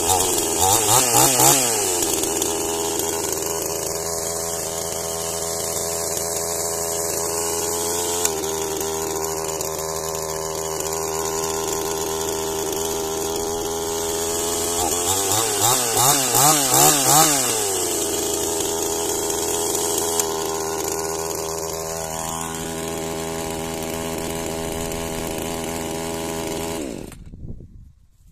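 Dnipro-M two-stroke petrol chainsaw warming up unloaded at a fast idle, blipped to high revs in a few quick throttle stabs near the start and again about halfway through, then switched off shortly before the end. The idle is set too high: it 'revs a lot' and the owner means to turn it down.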